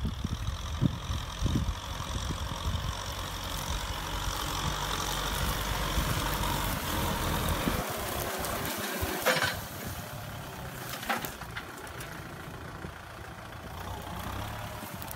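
Kubota M6040SU tractor's diesel engine running under load as it pulls a disc plow through dry field soil. About halfway through, the low engine rumble falls away and a hissing scrape of the discs through the soil takes over, with two sharp knocks.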